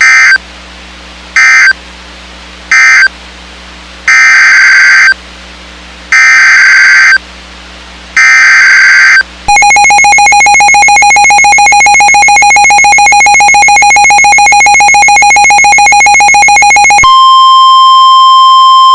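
Emergency Alert System data bursts and alert tones. Three short screeching bursts of the end-of-message code close the Delaware and New Jersey severe thunderstorm warning. Three longer one-second header bursts then open the next alert, a Maryland special marine warning. After them comes the harsh two-tone EAS attention signal for about seven seconds, and then a steady single-pitch alert tone in its place.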